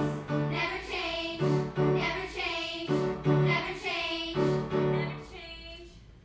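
A young ensemble of children and teenage girls singing together with piano accompaniment; the final sung phrase ends about five and a half seconds in and the sound dies away.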